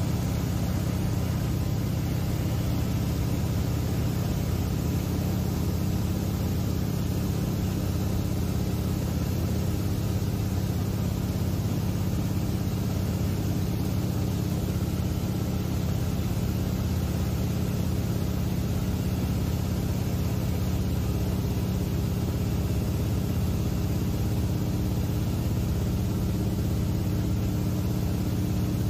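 Seaplane's propeller engine droning steadily in flight, heard inside the cabin as a constant low hum with rushing air over it.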